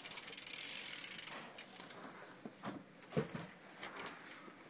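A BMX bike's rear hub ratcheting in a rapid, even run of ticks for about a second as the drivetrain is turned, then a few scattered clicks and knocks from the bike being handled, the loudest about three seconds in.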